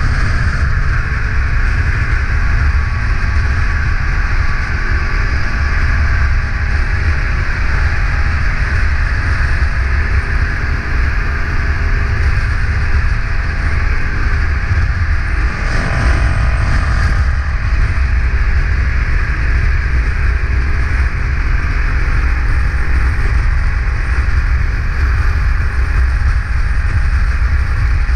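Cruiser motorcycle riding at highway speed: a steady low engine drone mixed with rushing wind and road noise. There is a brief swell of noise about halfway through.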